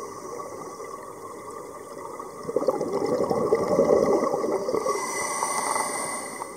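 Scuba diver's exhaled bubbles gurgling from a regulator underwater. A louder burst of bubbles starts about two and a half seconds in and lasts a couple of seconds, over a steady underwater hiss.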